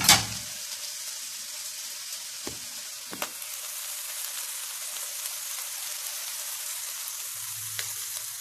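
Steady sizzling hiss from the rice pot on the gas stove, with a few clicks of a metal spoon against the pot, the loudest right at the start.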